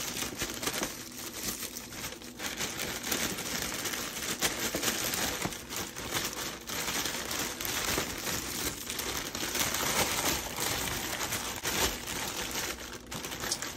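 Thin white plastic takeout bag crinkling and rustling continuously as hands pull it open and work it off a takeout pizza pan, with many small irregular crackles.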